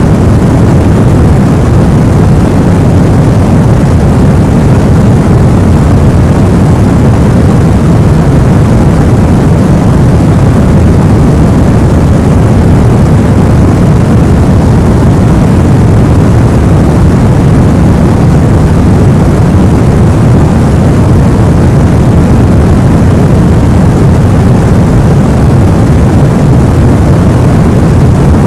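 Steady, loud white noise for getting a baby to sleep: an unbroken rumbling hiss, strongest in the low range and fading toward the highs, with no change throughout.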